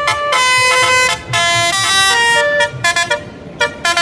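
Telolet bus horn tune from a toy bus: a string of horn notes stepping up and down in pitch, each lasting a fraction of a second, turning choppier and a little quieter in the last second.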